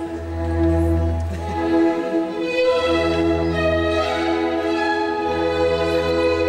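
Classical orchestral music with bowed strings: long held notes over a low bass line that swells and fades in slow phrases.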